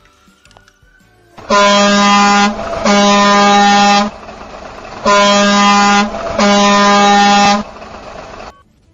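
Truck air horn sounding four blasts of about a second each, in two pairs, over a lower steady noise that carries on between the pairs.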